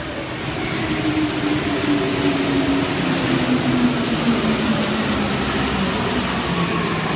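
MP 89 rubber-tyred metro train running into the station and braking, a steady rushing noise that grows louder with a whine falling in pitch as it slows.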